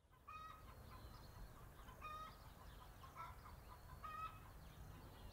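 Backyard chickens clucking faintly, with three short, louder calls about two seconds apart and softer chirps between them.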